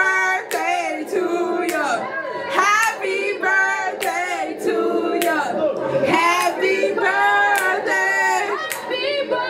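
Several voices singing together, overlapping, with held, wavering notes.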